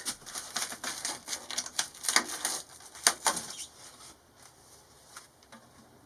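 Quick, irregular clicks and plastic rattles from hands working at the van's plastic interior trim and wiring. They come thick for the first few seconds, then thin out to a few scattered ticks.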